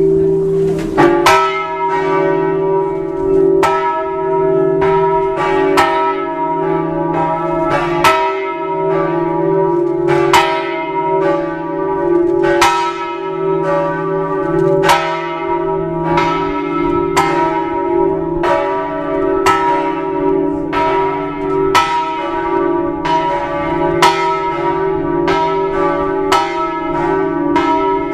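A large church bell of St Mark's Campanile tolling, struck about once a second, its low hum ringing on between strokes.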